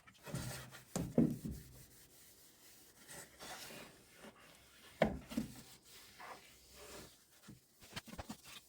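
Hand rubbing and scrubbing on a surface, with a few soft knocks of things being handled.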